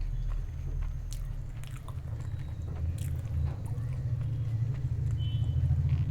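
Close-miked chewing and biting while eating, with scattered small wet mouth clicks over a steady low rumble.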